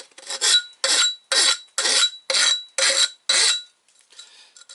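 Flat side of a half-round bastard file rasping across the cut outside edge of an aluminium intercooler tube in about seven quick, even strokes, taking off the burrs left by the cutoff wheel. The strokes stop a little before the end.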